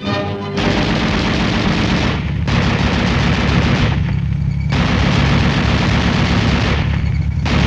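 A tank-mounted 7.62mm M73 machine gun firing in long bursts of automatic fire, with three short pauses between them. A low, steady rumble continues underneath, through the pauses.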